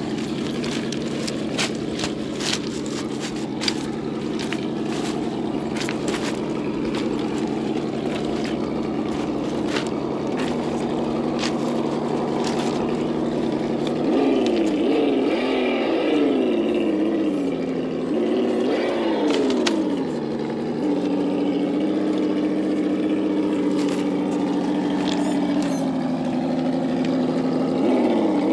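Engine sound module in a 1/8-scale RC Land Rover crawler playing a simulated engine idle through its speaker, revving up and down several times about halfway through before settling back to a steady idle. Scattered sharp clicks and ticks come through in the first half.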